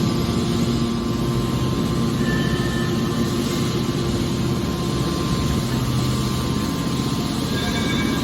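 Waste aluminum baler running: a steady machine hum from its hydraulic drive, with a few held low tones over a constant rumble.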